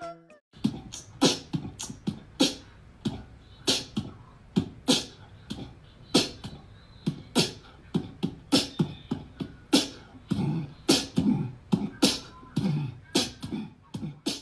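Percussive, beatbox-style music: a run of sharp beats about twice a second, with some vocal sounds between them, cutting off abruptly at the end.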